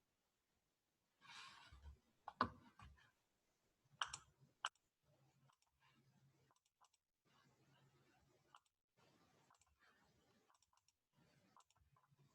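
A few faint, sharp clicks in near silence, most of them between two and five seconds in: calculator keys being pressed to work out a product and quotient.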